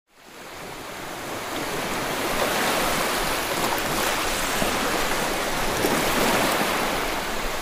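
Sea waves washing onto a beach: a steady rushing noise that fades in over the first second or two.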